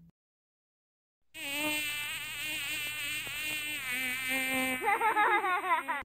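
Bee buzzing sound effect. A steady, many-toned buzz starts suddenly about a second in, with a slightly wavering pitch that swings up and down more near the end.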